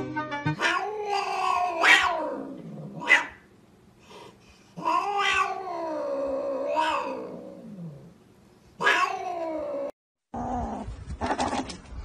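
A cat yowling: three long, wavering calls that rise and fall in pitch, the third shorter than the first two. Near the end, after a short break, rustling and clicking.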